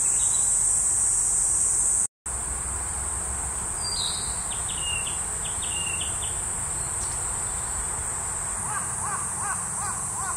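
A steady high-pitched insect drone, with short whistled notes of a narcissus flycatcher's song. The sound drops out completely for a moment about two seconds in. Near the end a lower call repeats four or five times.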